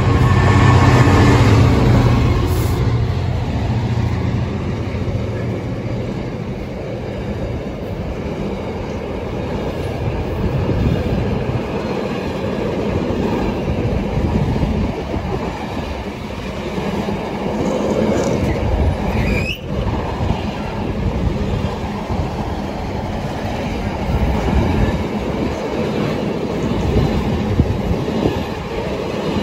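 Class 66 diesel locomotive passing with its train: its engine's low drone is loudest in the first few seconds and fades away, leaving the steady noise of wheels running on the rails, with a short rising wheel squeal about twenty seconds in.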